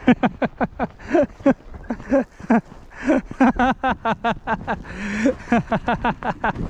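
A person's voice in quick short syllables, the pitch bending up and down.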